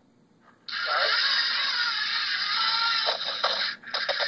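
Lego Mindstorms NXT robot's motors and plastic gear train whirring as it drives. The noise starts abruptly under a second in, drops out briefly near the end, then starts again.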